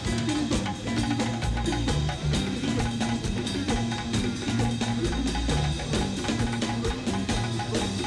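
Afrobeat band music: drum kit and hand drums playing a steady dance groove over a repeating bass guitar line.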